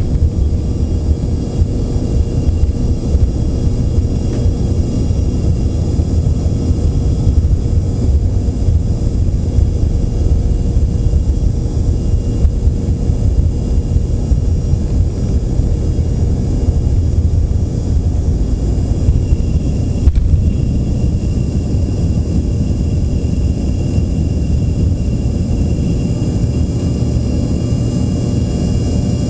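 Embraer ERJ-145 regional jet's twin Rolls-Royce AE 3007 turbofans running at takeoff: a loud, steady, heavy rumble with steady whine tones over it.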